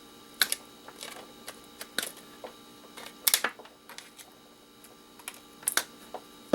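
Irregular sharp clicks and clacks of a small electronic device being handled and pulled apart, plastic and metal parts knocking together, over a faint steady hum.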